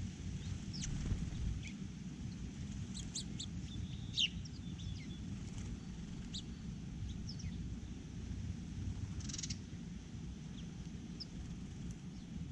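Small birds chirping and calling at a feeder in short, scattered notes, with a louder chirp about four seconds in and a harsher, rasping call about nine seconds in, over a steady low rumble.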